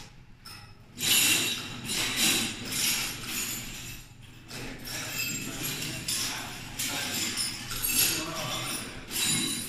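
Metal clinking and rattling at the high-speed roller door's drive motor as it is being fastened by hand, coming in short irregular bursts after a quiet first second.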